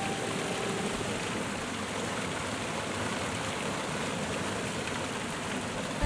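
Steady rush of water from a waterfall and the rocky river below it: an even rushing noise with no pitch.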